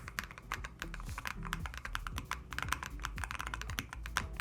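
Typing on a Lofree Flow 2 low-profile mechanical keyboard, a quick, dense run of key clicks.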